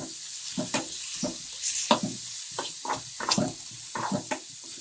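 Chopped thuduvalai (Solanum trilobatum) leaves sautéing in hot oil in a pan, sizzling steadily as they wilt, while a spatula stirs and scrapes the pan in quick, irregular strokes.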